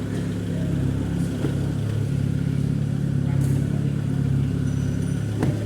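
Diesel engine idling steadily, with one sharp click near the end.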